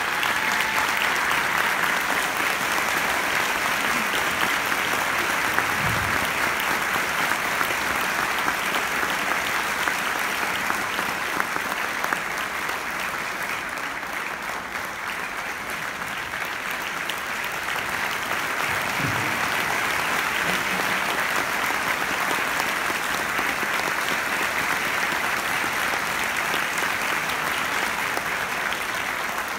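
Audience applauding steadily, easing a little about halfway through and picking up again.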